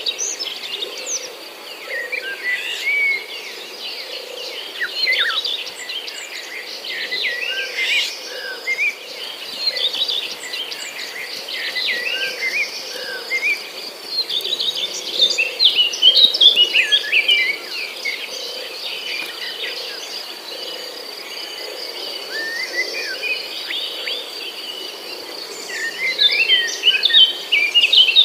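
Many birds chirping and calling over one another, with short quick rising and falling notes, over a steady high insect drone.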